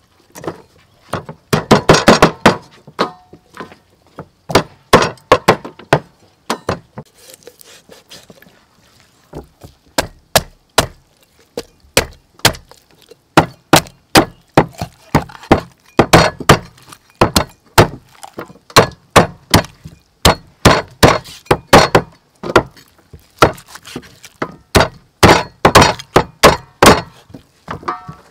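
A meat cleaver chopping a raw whole chicken through the bone on a thick round wooden chopping block: sharp thwacks in quick runs, a quieter pause a few seconds in, then a steady run of chops at about two to three a second.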